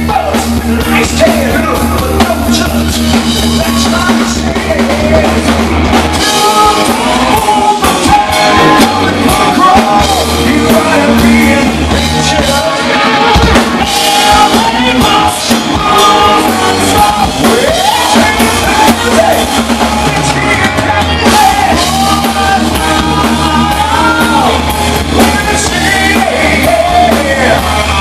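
Hard rock band playing live and loud: distorted electric guitars, bass and drums, with a man singing lead vocals, heard from the crowd in the club.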